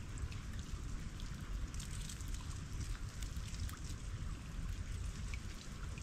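Melting estuary ice dripping and trickling: many small, irregular drips and ticks over a steady watery hiss, with a steady low rumble underneath.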